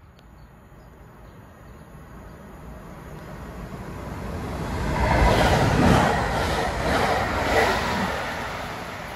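Electric multiple-unit passenger train passing beneath the footbridge: its rumble and wheel noise on the rails build up steadily, are loudest about five to eight seconds in as it goes under, then begin to fade as it runs away down the line.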